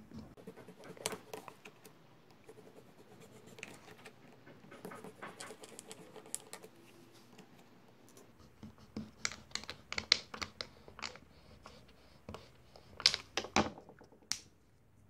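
Knife blade cutting and scraping through a plastic syringe plunger on a wooden cutting board: irregular scratchy strokes and sharp clicks, more frequent and louder in the second half, with a last single click near the end.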